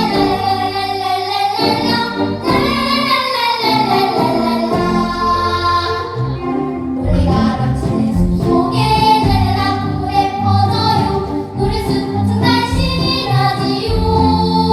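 Children's vocal ensemble singing a Korean children's song (dongyo) to musical backing.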